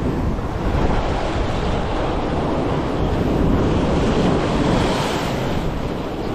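Wind buffeting the microphone over sea waves washing against shore rocks: a steady rushing with low rumble, a little louder around the middle.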